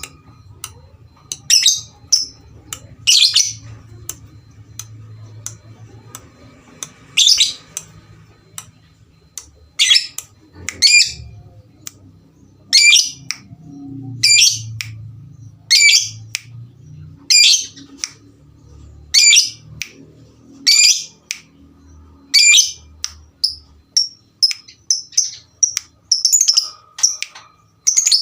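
Lovebirds calling back and forth with loud, short, shrill chirps, about one every second or two, coming quicker near the end.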